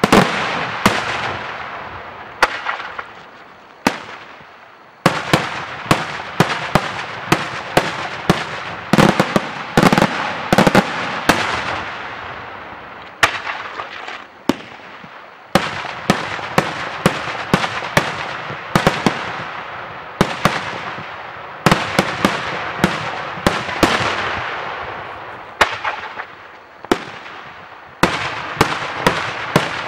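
Daytime aerial fireworks display: dozens of sharp bangs from shells bursting overhead in quick, irregular succession, each trailing off in echo, with a short lull about four seconds in.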